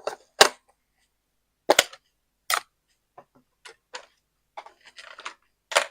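Craft supplies being handled on a desk: a few loud, sharp clicks and knocks, with fainter tapping and rustling in between.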